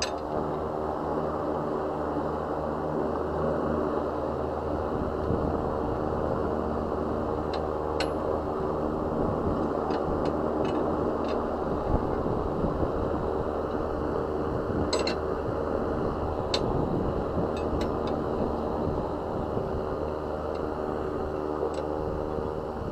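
A steady mechanical hum from a running machine, with a dozen or so faint, short clicks scattered through it.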